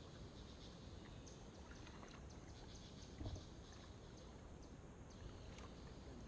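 Faint water sounds of a kayak being paddled on calm water: scattered light drips and trickles, with one soft knock about three seconds in.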